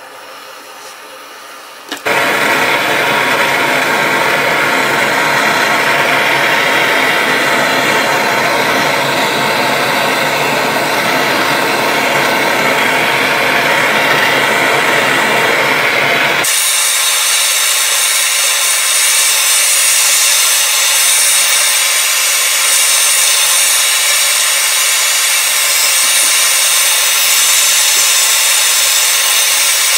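Handheld gas torch lit with a short click about two seconds in, then its flame running with a loud, steady hiss while it heats a silver spoon. About halfway through, the hiss loses its low part and turns thinner and sharper.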